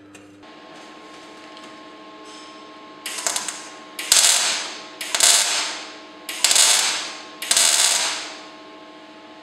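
MIG welder tack-welding the steel shell of a catalytic converter: five short bursts of crackling arc, about a second apart, each loud at the start and then fading, over a steady hum.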